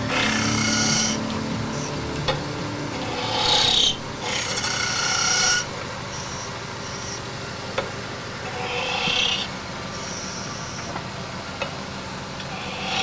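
Pen nib scratching and squeaking across a bare turned linden-wood doll blank as outlines are drawn, in several short strokes with pauses between them.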